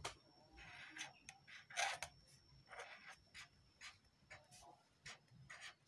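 Felt-tip marker writing on paper: a series of faint, short scratching strokes with brief pauses between them as the letters of a word are drawn.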